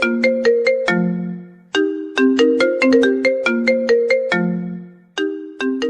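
Mobile phone ringtone melody of quick, bright struck notes. A short phrase ends on a held low note and then starts again, twice.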